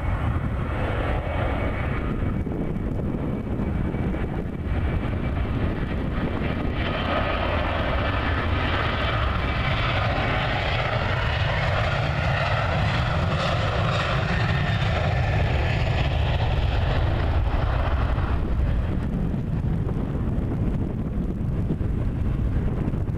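Boeing 737-900ER's twin CFM56 turbofan engines at takeoff thrust during the takeoff roll: a steady jet roar with a deep rumble. It swells as the jet passes about seven seconds in and eases again after about eighteen seconds.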